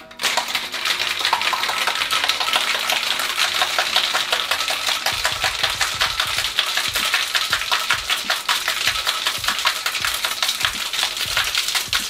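Four or five ice cubes rattling hard inside a copper cocktail shaker during a vigorous wet shake, a fast, steady, unbroken rattle.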